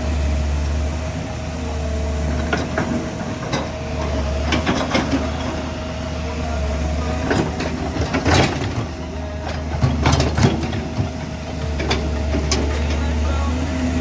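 Komatsu hydraulic excavator's diesel engine running steadily, with scattered clanks and knocks, the loudest a little past the middle.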